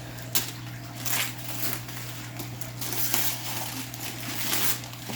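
Gift wrapping paper being torn and crumpled by hand in a run of irregular rustling rips and crinkles, over a low steady hum.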